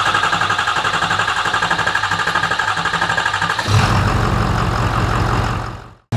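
Ford 6.7 L Powerstroke V8 turbodiesel in a 2017 F250, fitted with a large aftermarket non-VGT turbo, running with a steady rapid rhythmic clatter. A little over halfway through the sound turns deeper and louder, then fades out near the end.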